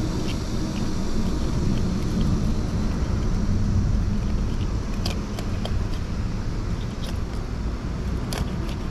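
Knife scraping the scales off a fish on a wet rock: a few short, sharp scrapes and ticks over a steady low rumble.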